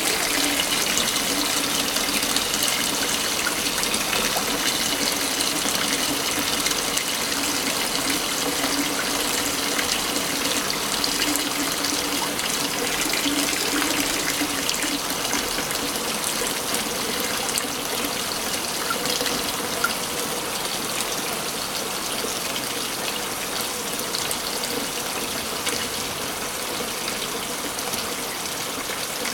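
Waterfall running steadily, a continuous rushing hiss of falling water.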